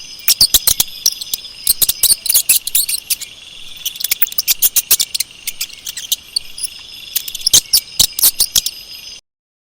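Mouse squeaking: rapid clusters of sharp, high-pitched squeaks over a steady high background tone, cutting off suddenly near the end.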